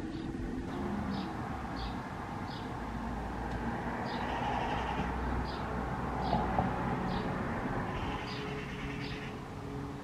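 Steady hum of distant road traffic, with a small bird chirping: short high notes repeating every half second to a second.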